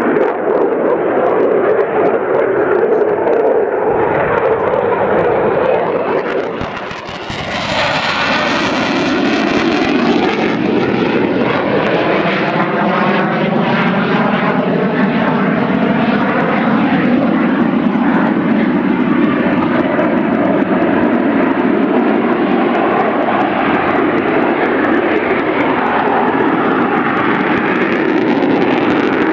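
Eurofighter Typhoon's twin EJ200 jet engines running loud and steady through a display pass. A brief dip about seven seconds in gives way to a harsher, hissing surge for a few seconds, then a wavering, sweeping rumble as the jet banks past.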